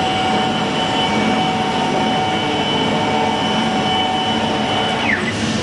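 CNC plasma cutting machine running, the plasma arc's steady hissing roar with a whine over it. About five seconds in, a tone falls sharply in pitch.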